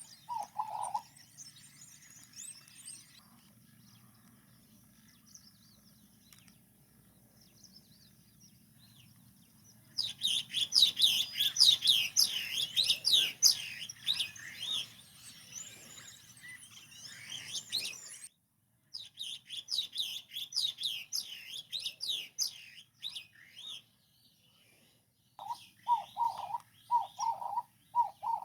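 Birds calling: a dense stretch of rapid, high chirping and twittering that starts about a third of the way in, breaks off suddenly, and resumes briefly. Short, low, repeated calls are heard at the very start and again near the end.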